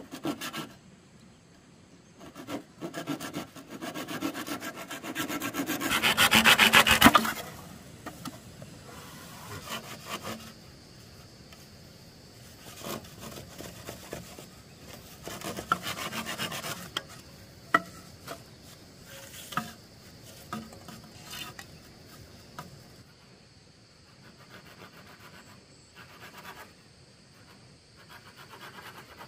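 A hand tool rasping on wood in repeated scraping strokes, building to the loudest stretch about six to seven seconds in. Quieter bursts of strokes follow, with a few sharp clicks.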